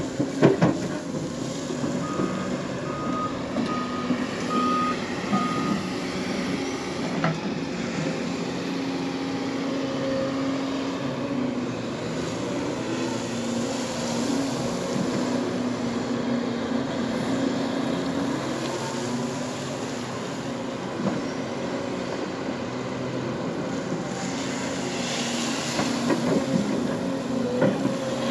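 Hyundai crawler excavator's diesel engine running steadily under load, with the travel alarm giving about five short beeps a couple of seconds in. Occasional clanks come from the machine working on the gravel pile.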